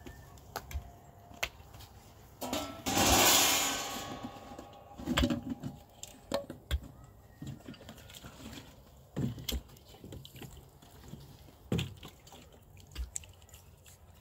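Water splashing or pouring in a loud rush about three seconds in, with a shorter splash a second later. Scattered knocks and clicks run through the rest.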